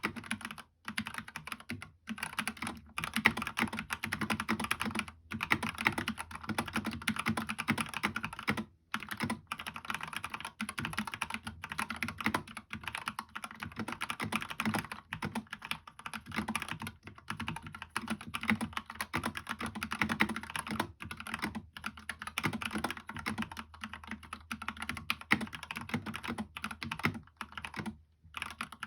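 Steady fast typing on a mechanical keyboard with lubed Gateron Yellow linear switches on an aluminum plate in a plastic GK64 case, keystrokes running together with a few short pauses.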